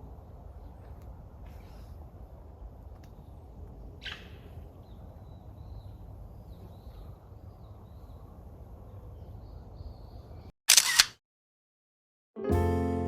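Steady low outdoor ambience with faint high chirps, then about ten and a half seconds in a short, very loud double click like an edited-in sound effect, a second of dead silence, and music starting near the end.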